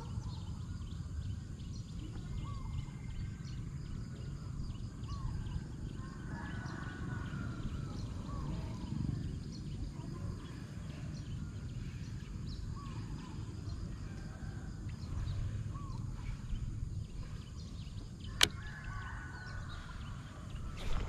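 Outdoor pond-side ambience: a steady low rumble with a small animal's short chirping call repeating every couple of seconds. One sharp click comes about three-quarters of the way through.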